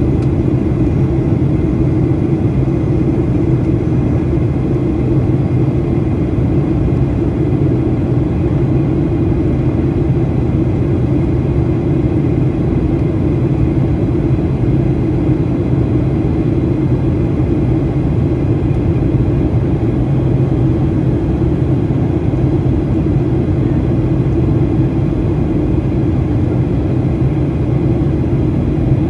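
Cabin noise of a Boeing 737-800 in flight, heard beside the wing: the CFM56-7B engine's steady low drone mixed with rushing airflow.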